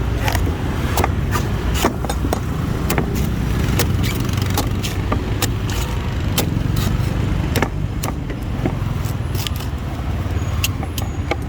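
A blade chopping into a fresh coconut, sharp irregular strikes about two a second, over a steady low traffic rumble.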